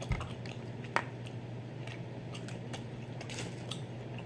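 Close-up eating of boiled head-on shrimp: wet chewing and squishing with scattered small clicks, and a soft thump at the very start, over a steady low hum.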